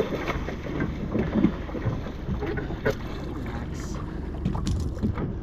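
Steady low rumble aboard a fishing boat at sea, with wind on the microphone and scattered small knocks.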